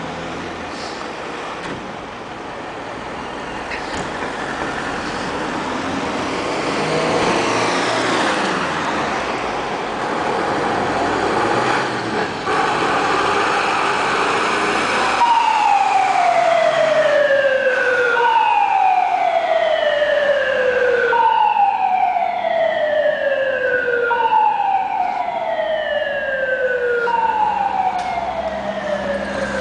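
Small Mercedes fire engine pulling out, its engine running and revving. About halfway through, its siren comes on: a tone that falls in pitch over a couple of seconds, then jumps back up, repeating about every three seconds.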